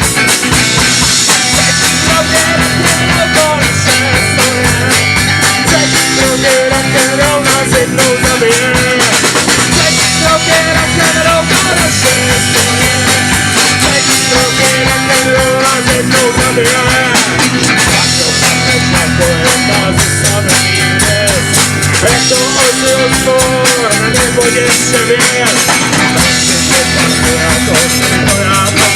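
Rock'n'roll band playing an acoustic arrangement: a steady drum beat, strummed guitars and a voice singing in phrases.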